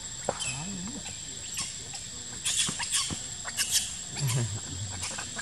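Macaques moving about: a few short low grunts and scattered clicks and rustles, over a steady high whine.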